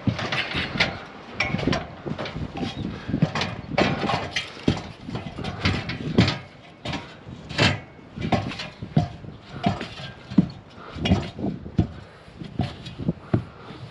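Irregular knocks and thuds, two or three a second, from climbing and moving about on a standing seam metal roof.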